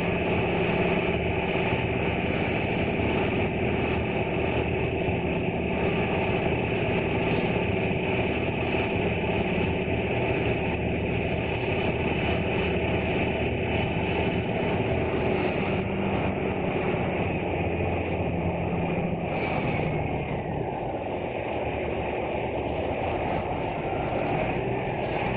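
Small passenger ferry's engine running steadily with a constant drone, heard from on board; it eases off a little about twenty seconds in as the boat nears the landing.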